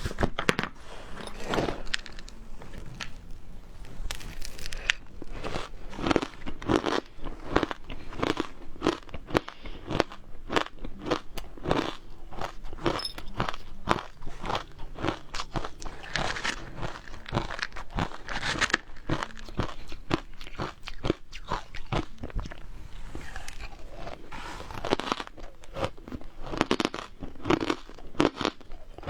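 Frozen matcha ice being bitten and chewed: a dense, irregular run of sharp crunches and crackles.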